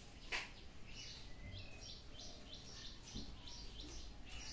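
A small bird chirping in a steady run of short high chirps, about three a second. A single sharp click sounds about a third of a second in.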